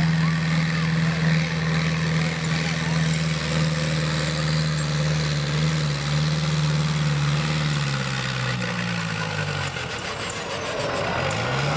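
LS farm tractor's diesel engine running at full power, pulling a competition sled and pouring out black smoke. Its steady note sags lower from about six seconds in as the revs fall under the load, dips away around ten seconds, then climbs again near the end.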